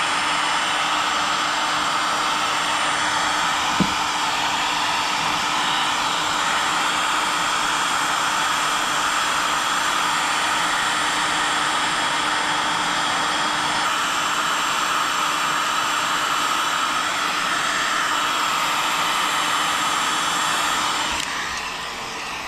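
Electric heat gun blowing steadily with a faint hum, played over a faded plastic fuel tank to bring the chalky white oxidation back to its original colour. It dies away near the end.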